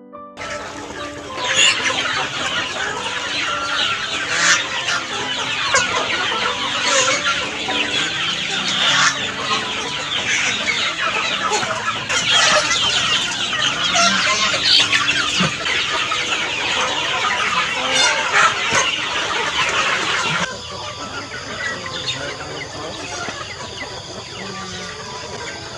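A large flock of chickens clucking and calling all at once at feeding time, a dense, continuous din of overlapping calls. About twenty seconds in the din drops off suddenly to quieter clucking.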